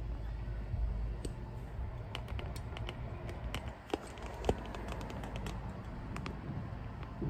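Irregular light clicks and taps, with two sharper knocks about four and four and a half seconds in, over a low steady rumble.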